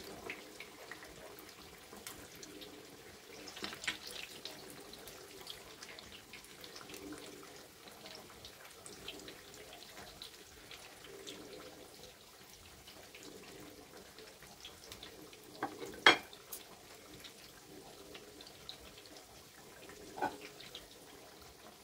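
Popiah spring rolls deep-frying in a wok of hot oil: a steady, quiet crackling sizzle. A few sharp knocks of the metal utensils cut through it, the loudest about sixteen seconds in.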